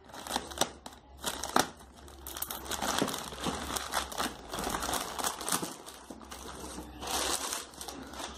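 Plastic courier mailer bag crinkling and rustling as it is handled, cut and pulled open, with a few sharp clicks in the first second and a half and louder spells of crackling about three seconds in and near the end.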